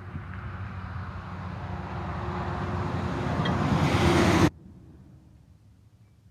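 An engine running, growing steadily louder for about four and a half seconds, then cut off abruptly, leaving only a faint low hum.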